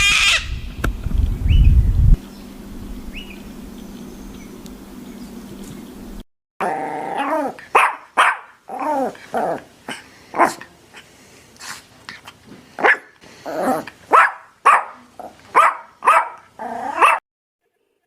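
A dog barking and yelping in a quick series of about a dozen short, pitched barks in the second half. Before that comes a low rumbling noise that settles into a quieter steady hum and then breaks off.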